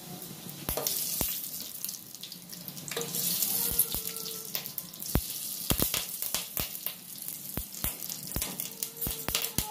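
Dried red chillies, whole spices and mustard seeds sizzling in hot oil in a kadhai, with many irregular sharp pops and crackles as the mustard seeds splutter. A metal ladle stirs them in the pan.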